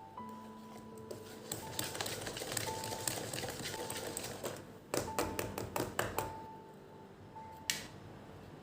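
Soft background music with a simple melody of held notes, over household handling noises: a stretch of rustling, then a quick run of clicks and knocks about five to six seconds in.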